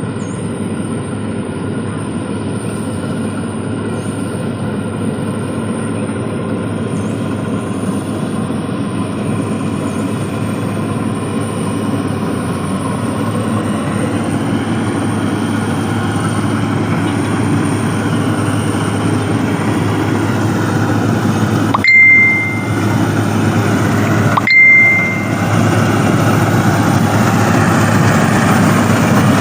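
Combine harvester engine running steadily, slowly growing louder. Two short, loud high beeps about two and a half seconds apart near the end.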